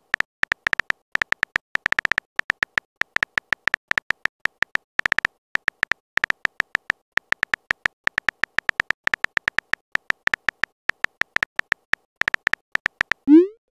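Rapid, irregular taps of a phone-keyboard typing sound effect. Each tap is a short pitched click, and they come in quick runs with brief pauses.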